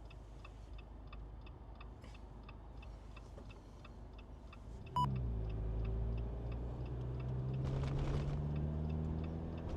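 Car turn signal ticking steadily inside the cabin, about two and a half ticks a second, while waiting to turn. About halfway through the engine note rises suddenly and steadies as the car pulls away into the turn, the signal still ticking.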